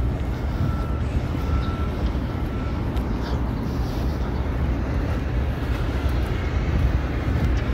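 Steady low rumble of a diesel train engine running at the platform. A faint high whine comes and goes in the first three seconds.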